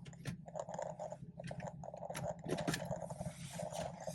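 BMW 440i's B58 turbocharged straight-six running underway, a steady low drone heard inside the cabin, with scattered clicks and crackles throughout.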